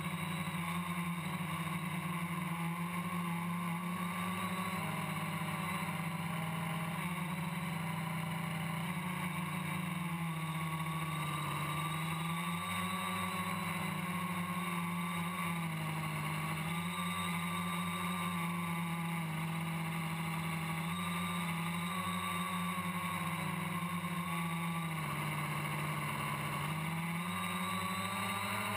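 FPV quadcopter's motors and propellers buzzing steadily in flight, the pitch shifting up and down a little in small steps.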